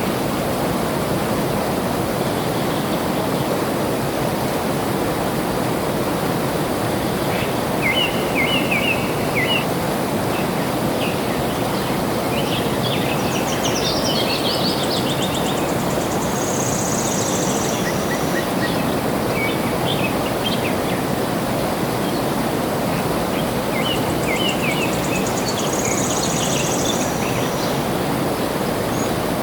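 Steady rush of flowing water with birds singing over it: short chirping phrases recur every several seconds, and higher trills and a thin buzzy note come about halfway through and again near the end.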